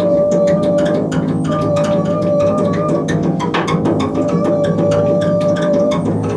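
Double bass played with extended bowing techniques: a sustained high bowed tone that breaks off and comes back a few times, over a fast, even clicking of about five to six strokes a second.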